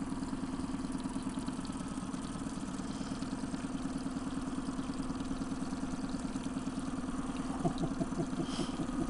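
Boat engine running steadily at low trolling speed: a continuous low hum with a fast, even pulse.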